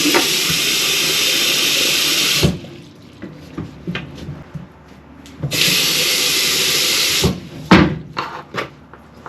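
Water running hard from a newly installed faucet, shut off sharply about two and a half seconds in, turned on again for about two seconds and shut off again. A sharp knock follows, with small clicks and taps in the quiet gaps.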